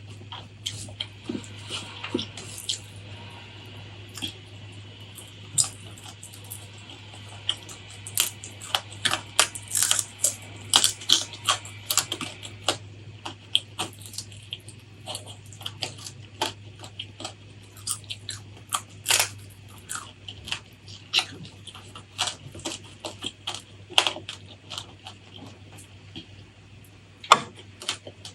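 Close-miked eating sounds: irregular sharp crunches and wet mouth clicks of chewing, busiest about eight to thirteen seconds in, over a faint steady low hum.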